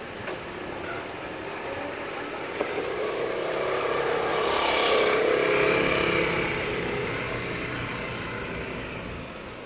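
A motor vehicle passing along the street, its engine rising to a peak about halfway through and then fading away.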